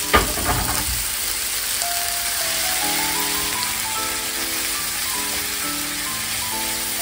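Frozen chopped leeks sizzling and hissing in a hot frying pan as they are stirred with a wooden spoon, with a single thump just after the start. Background music with stepped notes plays over it.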